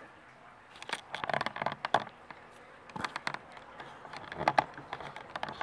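Plastic drone remote controller with a clamp-on phone/tablet mount being handled and set down on a table: scattered clicks, taps and scrapes, with one sharper click about three seconds in.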